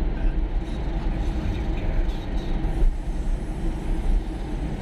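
Steady road noise inside a moving car's cabin, driving through a road tunnel: a low, even rumble of tyres and engine.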